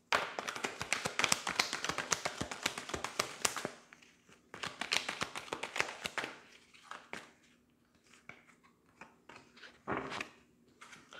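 A deck of tarot cards being shuffled by hand: a dense run of quick card clicks for about three and a half seconds, another burst a little later, then scattered taps. Near the end a card is laid down on the cloth.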